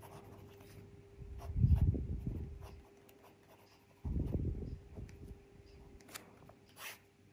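Pelikan M600 fountain pen's 14-karat gold nib writing on lined paper: two spells of pen strokes, about a second and a half in and again about four seconds in, with a few light ticks near the end.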